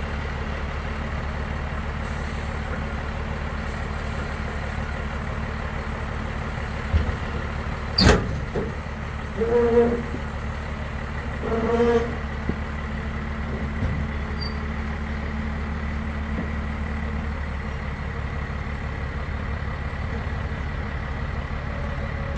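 A vehicle engine runs steadily. About a third of the way in there is a sharp clank, followed by two short squeals about two seconds apart.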